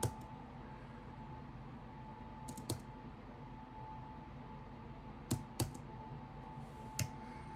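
About six short clicks and taps, in pairs a fraction of a second apart, over quiet room tone with a faint steady hum.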